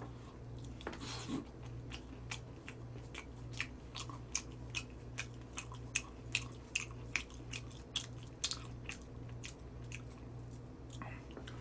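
Close-up crunching and chewing of crispy Goobne Gochu Basasak fried chicken: many short, sharp crunches, about two or three a second.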